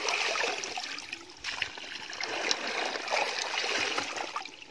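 Woven bamboo basket being worked through shallow muddy water, with uneven splashing and trickling as water runs through the weave, dropping off briefly about a second and a half in.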